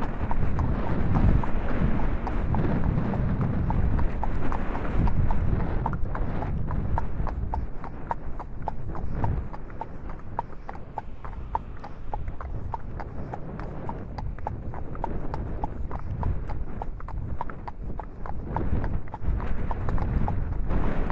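Gusty wind rumbling on the microphone, strongest in the first few seconds, over an even run of sharp clicks, a few a second.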